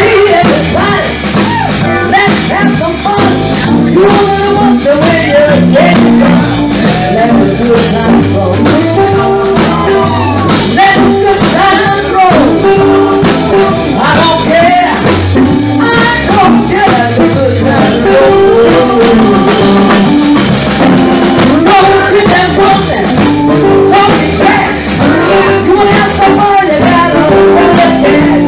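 Live band performing: a woman singing lead into a microphone over electric guitar and drum kit, the music loud and continuous.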